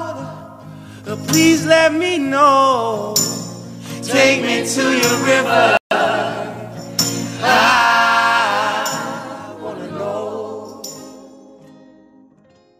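Song with wordless sung vocals and backing harmonies over a steady bass line, cutting out for an instant about six seconds in, then fading away to silence at the end.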